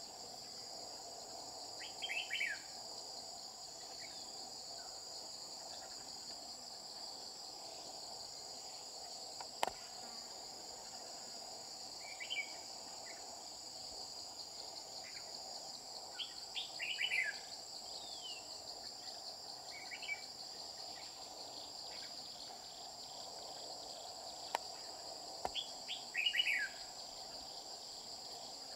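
Red-whiskered bulbul singing short phrases of quick falling whistles, about five times, over a steady high drone of insects. Two sharp clicks stand out on their own.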